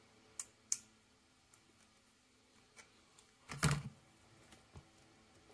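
Small plastic toy parts being picked up and handled on a tabletop. There are two sharp clicks in the first second, then a louder burst of clattering handling noise about three and a half seconds in.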